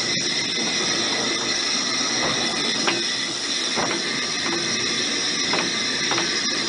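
Footplate sound of the narrow-gauge steam locomotive Dolgoch, an 0-4-0 well tank, moving slowly: a steady high hiss of escaping steam, with a few light clicks and knocks at irregular intervals.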